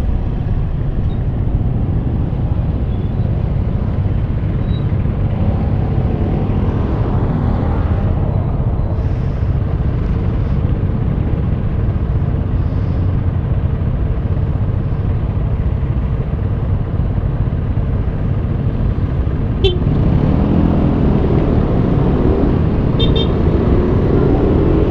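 Yamaha NMAX scooter ridden through city traffic: steady engine and road noise with other motorcycles around it. Engine pitches rise and fall as traffic moves off near the end, with a couple of short high beeps.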